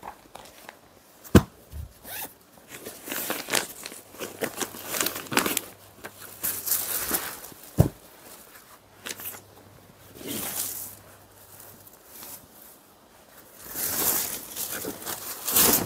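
Patola silk saree fabric rustling and swishing as it is unfolded, shaken out and spread by hand, in repeated swells, the loudest near the end. Two sharp taps stand out, one about a second and a half in and one about halfway through.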